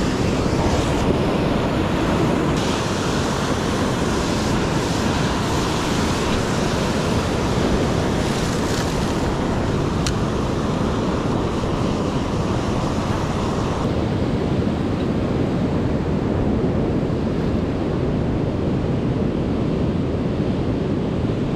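Ocean surf washing steadily against the shore, with wind buffeting the microphone; the higher hiss of the wash thins out about two-thirds of the way through.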